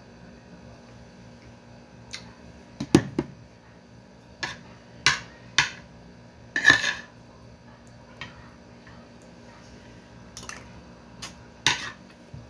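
Metal spoon clinking and scraping against a plate of rice: about a dozen sharp, separate clinks, with a heavier knock about three seconds in and a longer scrape a little before seven seconds.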